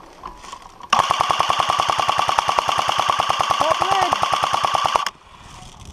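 A&K M249 airsoft electric support gun firing one long full-auto burst of about four seconds: a fast, even rattle of shots over the gearbox whine. It starts about a second in and cuts off suddenly.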